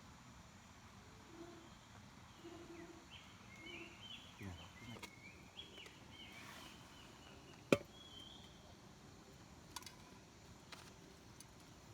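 Faint outdoor ambience with a run of quick, high chirping calls from a small bird or insect in the middle. About two-thirds of the way through there is one sharp click or knock, the loudest sound, followed by a couple of softer clicks.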